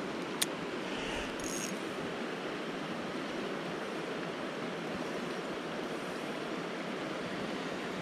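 Shallow creek water running steadily over rocks, with a single sharp click about half a second in.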